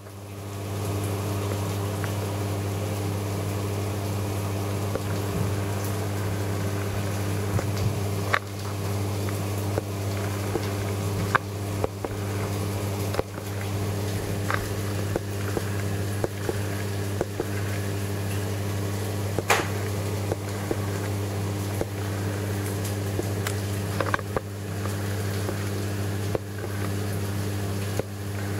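Steady electrical hum of reef-aquarium pumps, a low drone with evenly spaced overtones, with a few soft clicks now and then.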